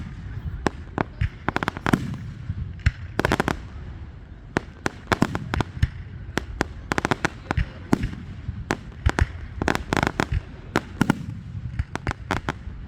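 Fireworks going off, many sharp bangs and cracks in irregular quick clusters over a steady low rumble.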